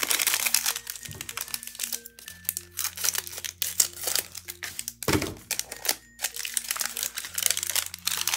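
Foil blind-box pouch crinkling as it is handled and cut open with scissors, with one sharper snap about five seconds in. Soft background music with held notes runs underneath.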